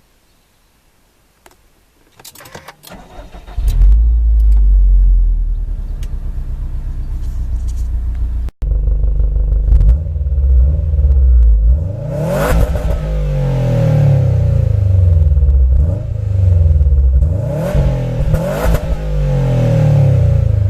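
Subaru WRX STI's turbocharged flat-four boxer engine on its stock exhaust cranking and catching about three and a half seconds in with a loud flare, then settling into a lumpy idle. It is then revved twice, rising and falling in pitch each time.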